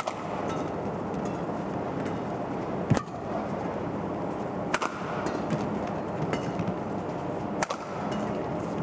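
Badminton rally: sharp racket strikes on the shuttlecock every couple of seconds, over the steady hum of an arena crowd.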